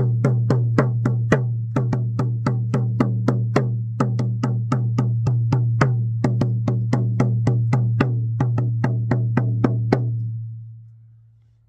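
Shamanic hide frame drum beaten in a steady rhythm, about two and a half strokes a second, with a low boom ringing on under the strokes. The beating stops about ten seconds in and the ring dies away.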